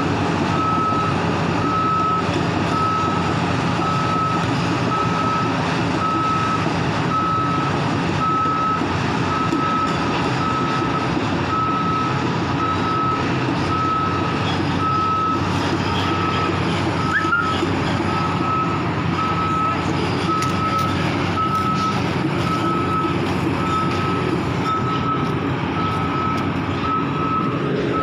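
Heavy construction machine's reversing alarm sounding a steady, even series of single-pitch beeps over a diesel engine running steadily.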